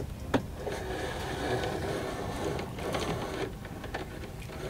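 Dashcam cable being pulled by hand through plastic trim, rubbing and scraping in runs of about a second, with a sharp click near the start.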